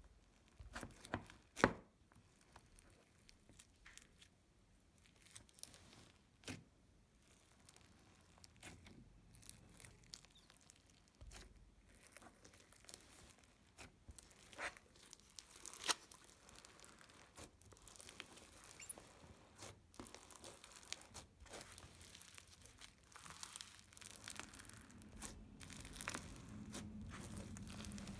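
Slime being squished and stretched by hand, making faint crackling, popping and crunching sounds with scattered sharp clicks.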